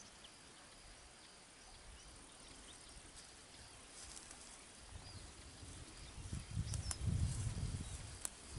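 Faint evening countryside ambience with a steady high insect trill. From about five seconds in, low muffled rumbling and rustling grows louder, with a few sharp ticks.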